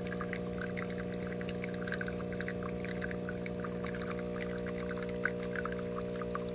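De'Longhi Dinamica Plus fully automatic espresso machine dispensing a drink: its pump hums steadily while liquid pours out with an irregular crackly spatter.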